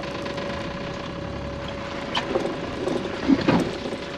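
A boat motor idling with a steady hum. A few short knocks and clatters come about halfway through and near the end, as a lobster pot is handled at the boat's side.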